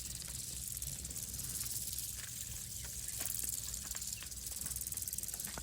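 Insects chirring steadily in a high, fast-pulsing hiss, with scattered small clicks and ticks.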